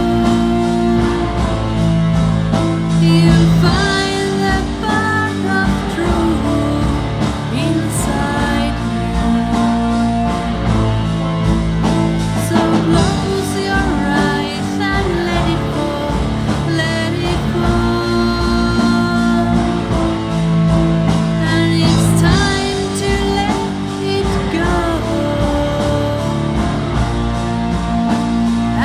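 Rock band music from a demo recording: a sung vocal over guitar, bass, keyboards and drums, playing without pause.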